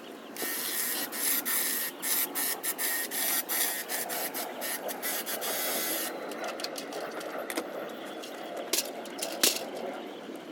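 Hedge trimmer cutting through foliage, its blades chattering and snapping twigs, heaviest for the first five or six seconds, then lighter.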